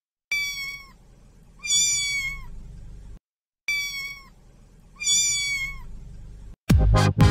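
A small kitten meowing: two short, high-pitched mews, then the same pair again.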